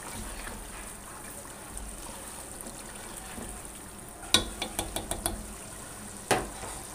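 Watery beef curry bubbling in a large nonstick pot as a spatula stirs it. About four seconds in, a quick run of clicks as the spatula knocks against the pot, then one more knock near the end.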